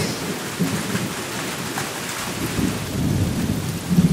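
Storm sound effect of steady rain, with low rumbles of thunder swelling in the second half.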